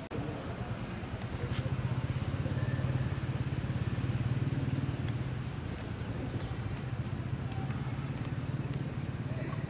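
An engine running steadily with a low, fast-pulsing hum, louder from about two to five seconds in.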